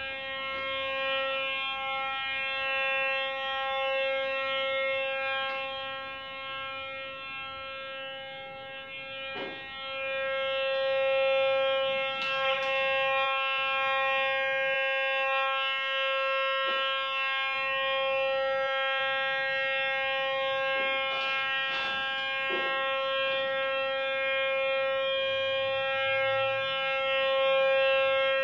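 Fisher TW-5 two-box metal detector giving its steady audio tone as it is swept along a wall. The tone holds one pitch and swells louder about ten seconds in and again near the end, marking strong metal signals, with a few short clicks between.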